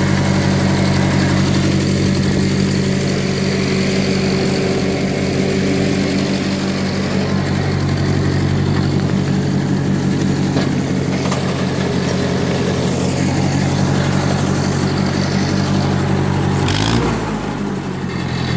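A 1939 Ford 9N tractor's four-cylinder flathead engine idling steadily, with a brief dip in engine speed near the end.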